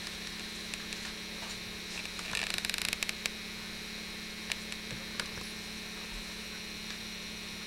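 Steady electrical mains hum, with a brief rapid crackle of handling noise about two and a half seconds in and a few scattered small clicks.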